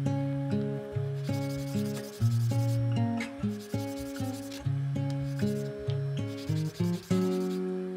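A small wooden block rubbed back and forth on sandpaper in a sanding-block fixture, a scratchy hiss that comes in several spells. Background music with plucked, guitar-like notes plays throughout.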